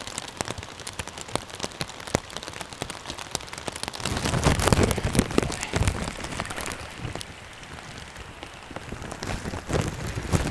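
Rain falling, with many sharp drops ticking close on the camera, over a steady hiss. A louder, deeper rumble comes in about midway for a few seconds and again near the end.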